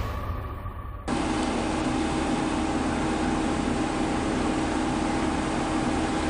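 A steady, even hiss and hum with a couple of faint constant tones, like a running machine. It starts abruptly about a second in, as an earlier sweeping sound fades out. No crash or impact is heard in it.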